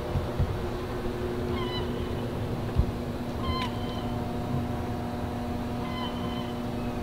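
Three short, high-pitched animal calls, about two seconds apart, over a steady low hum.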